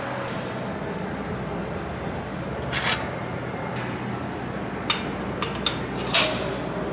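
A handful of sharp metallic clicks and clacks from a changeover part being handled on a bucket denester's separating station, over a steady low machine hum. The loudest come about three seconds in and just after six seconds.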